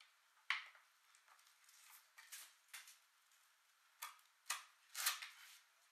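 Kitchen knife cutting through a lemongrass stalk onto a wooden cutting board: a few sharp, irregular knocks, the loudest about half a second in and two more close together near the end.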